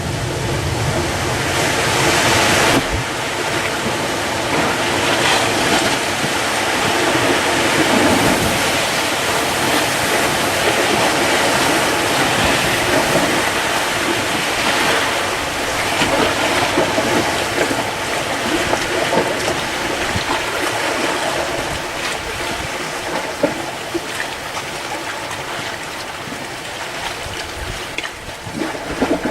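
Steady rushing noise of water and wind, easing off slightly near the end.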